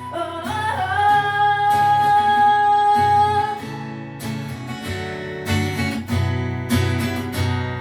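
Live acoustic band music: a female singer holds the last note of a line for a few seconds, then an instrumental break of strummed acoustic guitar with sharp percussive hits.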